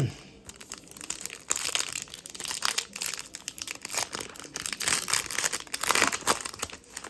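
Crinkling and crackling of a plastic trading-card pack wrapper being handled and torn open, a dense run of crackles that goes on almost throughout.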